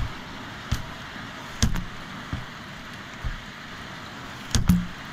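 Heavy rain falling steadily, with several sharp knocks scattered through it, the loudest at the start and near the end.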